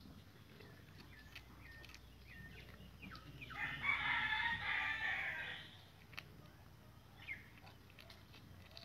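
A rooster crowing once, a single long call of about two and a half seconds in the middle, with short high bird chirps before and after it.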